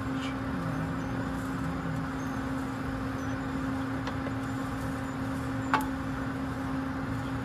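A wooden spatula stirring sesame seeds dry in a nonstick pan, with a sharp tap of the spatula on the pan about three quarters of the way in. Underneath runs a steady hum with a hiss.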